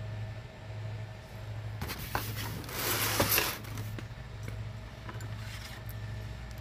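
A low, steady hum with a brief rustling scrape about three seconds in and a few light clicks.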